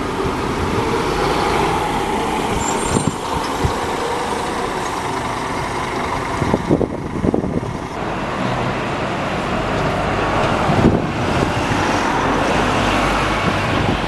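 Double-decker buses' engines running as they pull away along a city street, with passing traffic and a few short knocks partway through.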